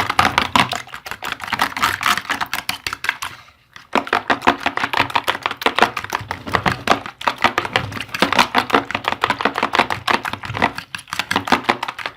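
Eggs being beaten with spices in a bowl, the utensil clicking rapidly against the bowl's sides, with a brief pause about three and a half seconds in.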